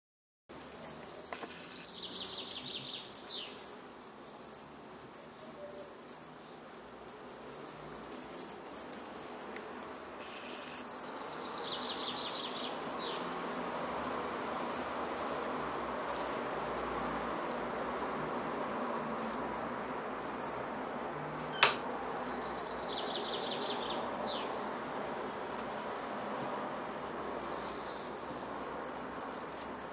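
Steady high-pitched rapid chirping like insects, with a falling call that comes back roughly every ten seconds, and one sharp click about two-thirds of the way through.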